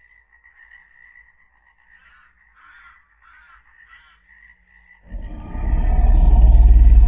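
Dinosaur sound-effect soundtrack in 8D audio. Faint croaking calls sound over a steady high tone, then about five seconds in a deep rumble swells up loud.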